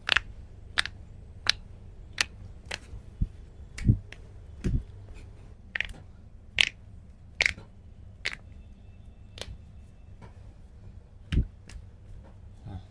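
A run of sharp joint cracks and pops during a chiropractic adjustment, roughly one or two a second, with a few dull low thuds among them.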